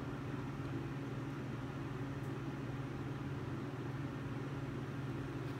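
Steady low mechanical hum from a hydraulic pump unit running for the push pier jacks that lift the foundation.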